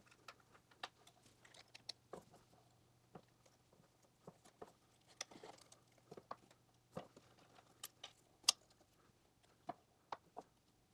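Faint, scattered light clicks and taps of small wooden blocks and a red 3D-printed PLA part being handled and set in place on an arbor press, with one sharper click about eight and a half seconds in.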